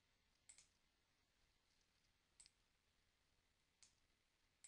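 Near silence broken by four faint, sharp computer mouse clicks, spaced a second or two apart.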